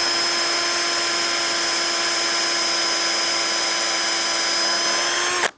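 Power drill running at a steady full speed, boring a pilot hole into a wooden post, then stopping suddenly near the end.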